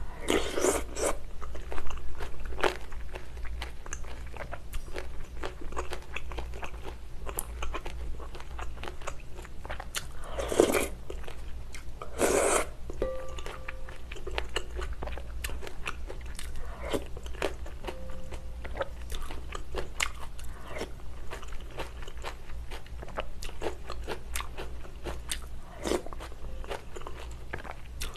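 Close-miked eating sounds of a person finishing a shrimp noodle soup with a spoon: chewing and wet mouth clicks throughout, with a few short slurps of broth, the loudest about ten and twelve seconds in.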